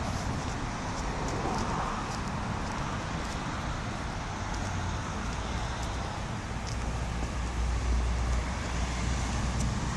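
Steady rumble of road traffic, with a low engine rumble swelling in the second half.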